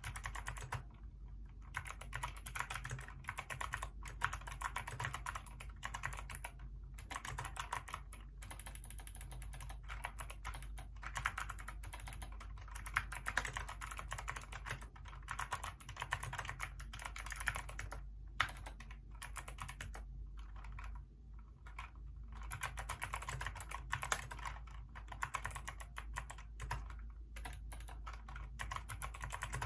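Hacker K611 mechanical keyboard with Kailh optical switches being typed on: a fast, continuous run of keystroke clicks, broken by a few short pauses.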